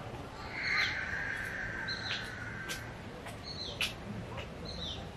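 A bird calling over and over: short, high notes that each drop in pitch, about four times, roughly a second and a half apart, with a few sharp clicks in between.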